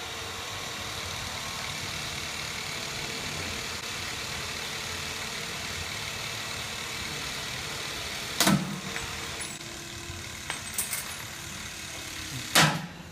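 Milwaukee M18 Force Logic cordless hydraulic cable cutter running steadily as it presses through a cable, then a loud sharp snap about eight and a half seconds in as the blades shear through. A second sharp snap comes near the end.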